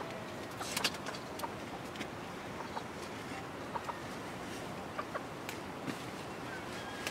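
Chickens clucking now and then, with scattered short crackles of dry straw being handled.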